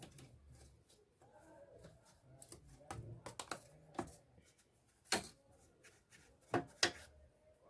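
Brush scrubbing dust out of an opened power amplifier's chassis and circuit board: light scratchy brushing broken by sharp clicks and knocks, the loudest about five and seven seconds in.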